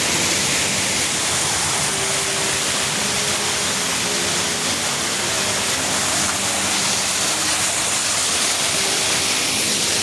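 Large indoor waterfall: the steady rushing roar of falling water, with no let-up.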